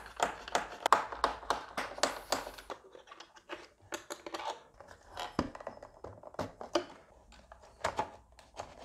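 Screwdriver working the screws out of a plastic e-bike battery case and the case being handled and opened: a run of small clicks, taps and scrapes of metal on plastic, busiest in the first three seconds, then sparser.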